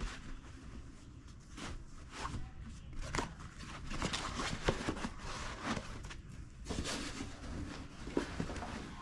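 Scattered rustling, with irregular clicks and light knocks of objects being handled.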